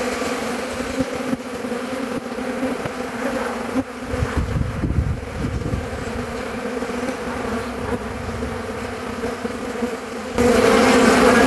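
Honeybees buzzing around an opened hive, a steady hum of many bees in flight that grows clearly louder near the end.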